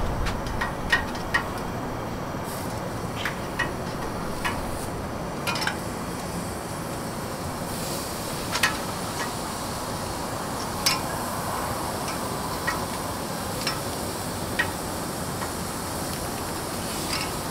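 Metal tongs clicking and scraping against a grill grate as portobello mushroom caps are turned, a dozen or so sharp clicks spread irregularly through. Under them runs a steady sizzling hiss from the grill.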